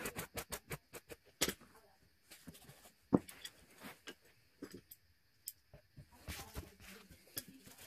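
Stiff-bristled hand brush swept quickly over carpet pile, about six rapid scratchy strokes in the first second and a half. A sharp knock about three seconds in is the loudest sound, followed by scattered rustling as the carpet is handled.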